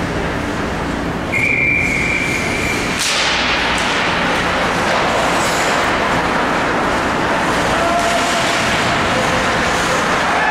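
Ice-rink game noise: a steady din of crowd and arena sound, with one steady whistle blast about a second in. At about three seconds the noise jumps louder and stays busier, with scattered shouts near the end.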